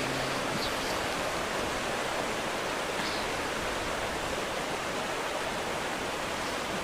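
Steady, even background hiss; a held voice dies away in the first half second.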